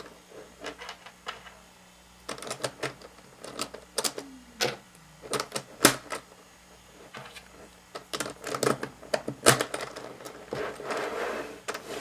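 Plastic pieces of a 5x5 Rubik's Cube clicking as they are pushed into place in the partly reassembled cube: irregular sharp clicks.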